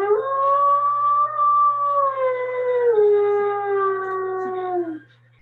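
A dog howling: one long howl that slowly sinks in pitch, drops a step lower about three seconds in, and stops about five seconds in.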